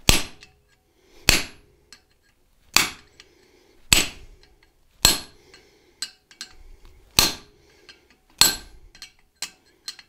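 Hand hammer striking a first-pass butcher held on hot high-carbon steel on the anvil: about nine sharp, ringing blows a little over a second apart, two of them lighter.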